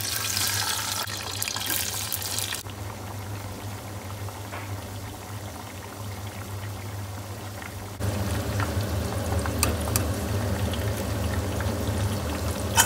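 Chips in hot oil in a stainless steel saucepan, deep-frying. There is a loud sizzle as they go in, which settles after about two and a half seconds into a quieter steady fizz. From about two-thirds of the way in, the frying crackles and pops more busily, and a sharp click comes near the end.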